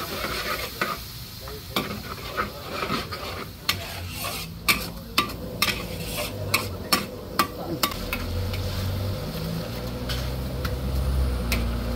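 Metal ladle scraping and clanking against a wok as noodles are stir-fried, over the steady sizzle of frying, with a run of sharp clanks through the middle. About eight seconds in, a low steady rumble joins the sizzle.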